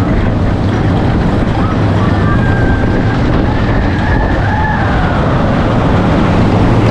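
Zamperla motorbike roller coaster train running at speed, heard from on board: a steady rumble of the wheels on the track mixed with wind buffeting the microphone.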